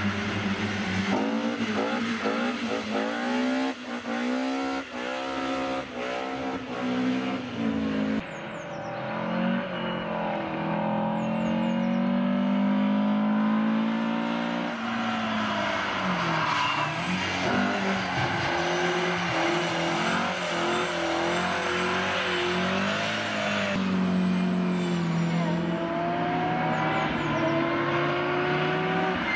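Rally cars' engines revving hard as they drive past one after another, the pitch climbing in steps with each upshift and sweeping up and down as they accelerate and lift.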